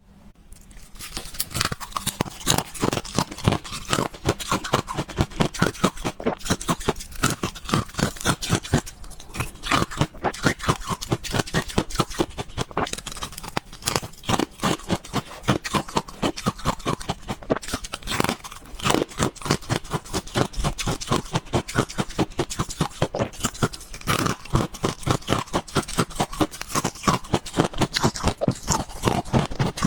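Ice being crunched and chewed: a continuous run of sharp crunches, several a second.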